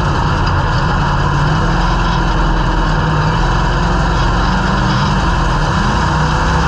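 Dirt-track race car's engine running at a steady pitch, heard from inside the cockpit, with the pitch rising slightly near the end.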